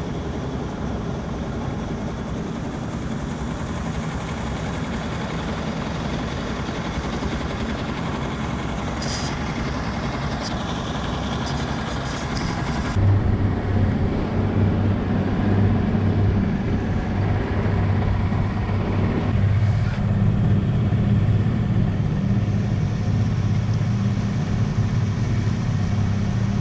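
Boat engine running under way, with wind and water noise. About thirteen seconds in the sound cuts to a louder, steady low engine drone.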